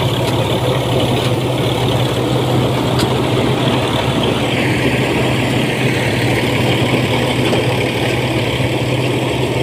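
Mini combine harvester mounted on a small tractor running steadily as it cuts and threshes standing crop: a constant engine hum under the whir of the machinery. A higher hiss grows louder about halfway through.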